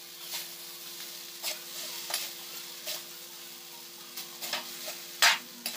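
Metal spatula scraping and knocking against a pan as noodles and vegetables are tossed and stir-fried, over a faint steady sizzle. The scrapes come every second or so, the loudest about five seconds in.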